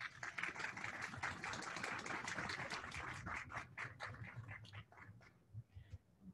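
Rustling, scraping handling noise close to the podium microphone: dense crackly rubbing and small clicks for about five seconds, then thinning out.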